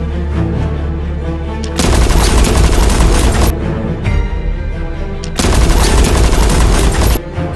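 Two bursts of rapid automatic gunfire, each lasting under two seconds and about two seconds apart, over steady background music.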